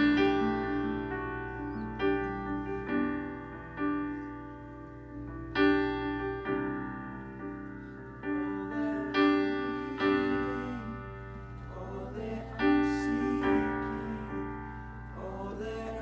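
Slow piano music: chords struck every one to two seconds and left to ring out over a steady low bass.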